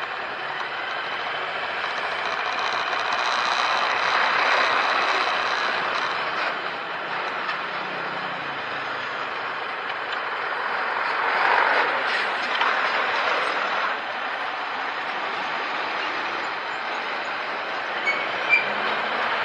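Traffic noise heard from inside a car: a heavy lorry towing a trailer crosses close in front, its engine and tyre noise swelling about four seconds in and again around twelve seconds in.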